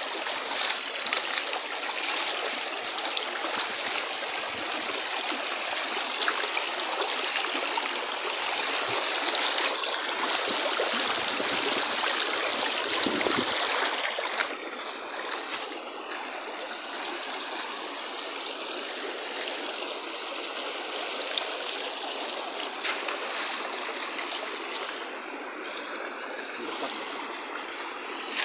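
Shallow rocky stream rushing and splashing over stones in a steady rush of water; the rush drops somewhat about halfway through.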